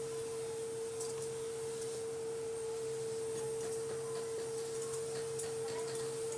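A steady, unchanging high hum on one pure pitch, like an electrical whine, with a few faint clinks of thin steel strips being stacked by hand.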